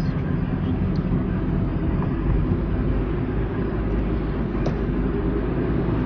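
Steady low road and engine noise heard inside the cabin of a moving car.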